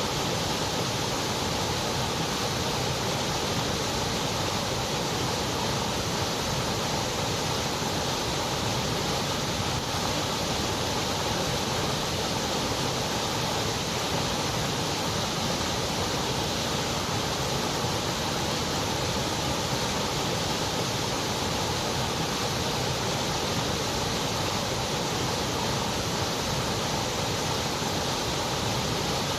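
Continuous white noise: an even, steady hiss that does not change.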